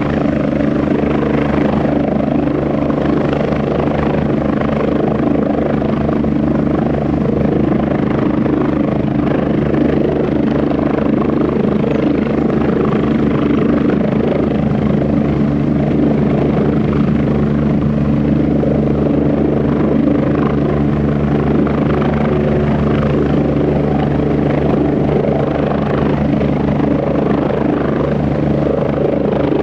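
Airbus (Eurocopter) UH-72A Lakota helicopter hovering low, its twin turboshaft engines and rotors running at a steady, even level with no change in pitch or loudness.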